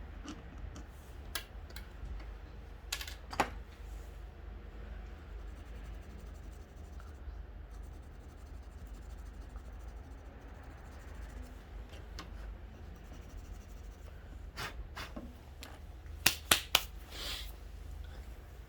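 Scattered sharp clicks and taps of small fishing-rod reel seat parts being handled and fitted, loudest in a quick cluster near the end, over a low steady hum.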